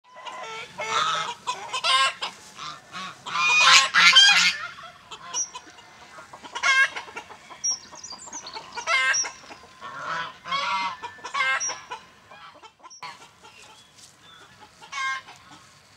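Brahma chickens calling: a dense run of loud calls in the first four or five seconds, then single calls every second or two, fainter near the end.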